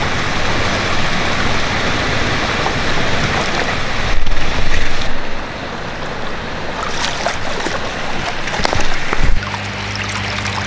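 Water splashing and churning as a hooked red tail catfish fights at the surface of the lake, with a louder burst about four seconds in.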